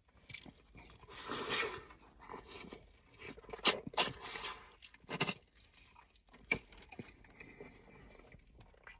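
Close-up eating sounds of a person biting into and chewing a hot chicken wing: irregular crunches and sharp mouth clicks.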